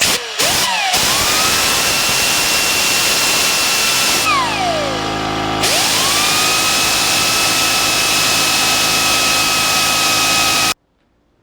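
Pneumatic rotary air tool fed from a small air compressor. After a few quick trigger taps, a high whine spins up and holds steady, winds down with a falling pitch about four seconds in, then spins up again and runs steady until it cuts off abruptly near the end.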